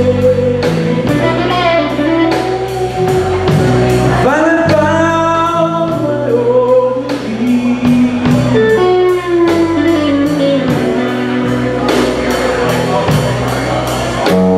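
Live band playing a blues song: a singer over guitar, bass and a steady drum beat.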